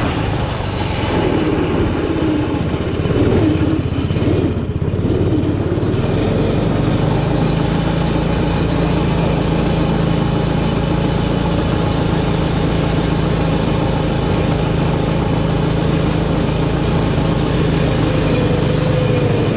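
Arctic Cat 120 youth snowmobile engine running under way. Its pitch wavers up and down for the first few seconds, then holds steady and a little stronger for the rest of the ride.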